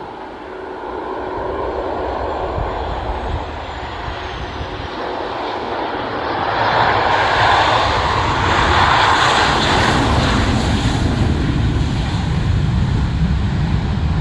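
Airliner's engines roaring as it passes close by, growing louder about halfway through and staying loud, with a faint high whine sliding down in pitch in the first few seconds.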